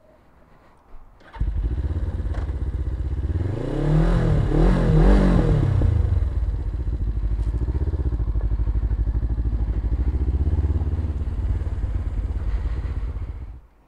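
Suzuki GS500E parallel-twin motorcycle engine with a Leo Vince exhaust starting up and idling. It is blipped a few times about three to six seconds in, settles back to idle, and shuts off just before the end.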